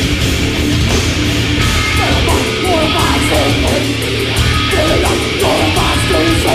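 Live heavy metal band playing: distorted electric guitars and bass over fast drums with regular cymbal and snare hits.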